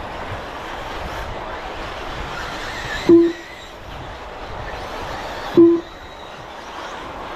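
Electric RC buggies running on the race track, a steady haze of motor and tyre noise. Two short, loud electronic beeps come about two and a half seconds apart.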